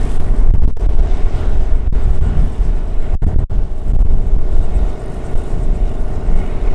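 Cessna 208B Grand Caravan's turboprop engine and propeller droning steadily as the aircraft climbs away, under a loud, uneven low rumble.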